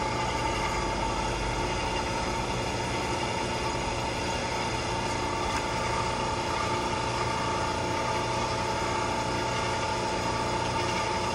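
Steady mechanical hum with a constant high whine from equipment running at an air-cooled chiller whose compressors are idle, waiting for load.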